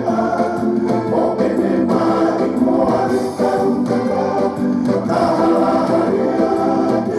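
Recorded song: several voices singing together in harmony over instrumental accompaniment, a Tongan school song.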